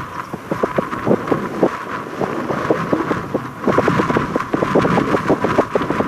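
Gusty wind buffeting the microphone, a rough, uneven rush of noise that grows stronger about three and a half seconds in.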